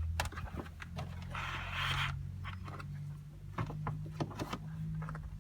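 Handling noise from positioning a GPS antenna and its wire in a car: a rustling scrape about one and a half seconds in and scattered light clicks, over a steady low hum.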